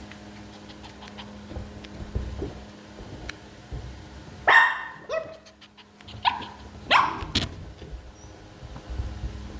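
Small shih tzu-type dogs barking: about five short, sharp barks in the middle of the clip, some dropping in pitch, over a steady low hum.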